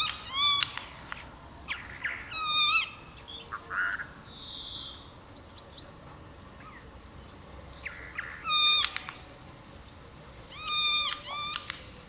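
Eurasian jay singing: a varied song of short pitched notes in scattered phrases, each phrase different, with pauses of a few seconds between them.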